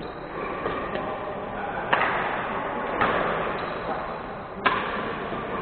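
Badminton rackets striking a shuttlecock in a rally: three sharp hits about a second apart, the strongest three seconds in, each echoing in a large hall.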